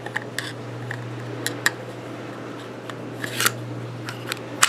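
Kahr CM9 pistol's steel slide being fitted back onto its frame by hand: a string of light metallic clicks and a short scrape about three seconds in, with the sharpest click near the end.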